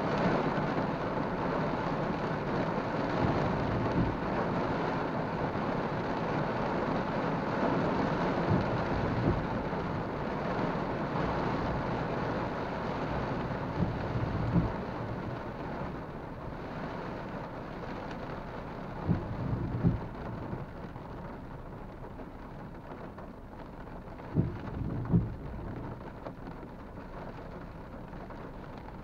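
Rain falling on a car's roof and windshield, heard from inside the cabin as a steady hiss that eases off over the second half. Now and then the windshield wipers sweep, each pass a pair of short thumps about half a second apart, roughly every five seconds.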